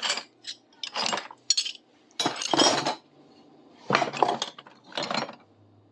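Old steel hand tools clinking and scraping against each other as they are rummaged out of a bucket and set down, in several separate bursts.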